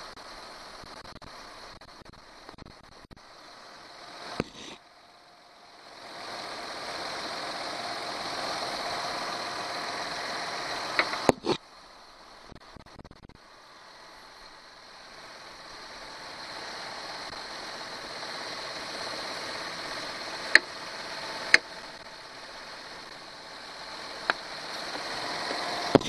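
Nissan Pathfinder engine idling with the AC compressor engaged, under a hiss of R-134a refrigerant flowing from a recharge can into the low-side port while the can's dispensing button is held. The hiss swells over several seconds, cuts off abruptly about eleven seconds in, then builds again. There are a few sharp clicks, the loudest two close together past the twenty-second mark.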